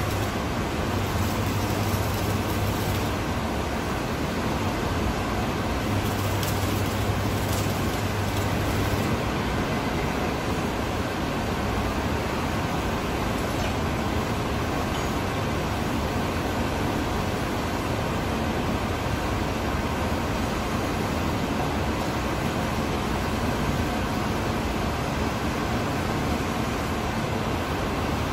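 Electric arc welding on a steel tank lid: the arc buzzes and crackles in two runs, one ending about three seconds in and another lasting from about six to nine seconds. After that only the steady noise of the factory hall remains.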